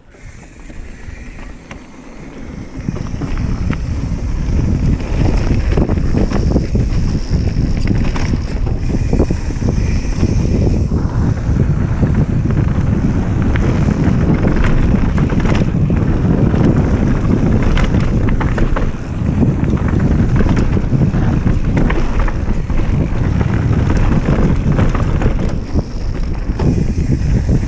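Wind buffeting an action camera's microphone as a mountain bike rides fast down a dirt trail, with the tyres rolling on the ground and the bike's frequent rattles and knocks over bumps. Quieter for the first two or three seconds, then a steady loud rush.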